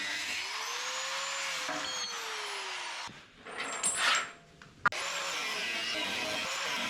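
Power tool cutting through a steel loader-bucket cutting edge: a steady, noisy whine whose pitch rises and then sags in the first few seconds. It breaks off in the middle with a short burst of higher noise and a sharp click, then runs steadily again.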